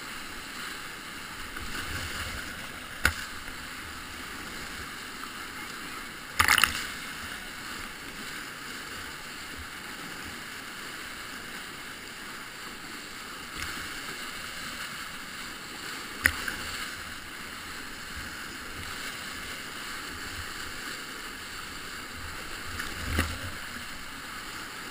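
Whitewater rapids rushing steadily and close as a kayak is paddled through them. A few sudden sharp hits cut through, the loudest about six and a half seconds in.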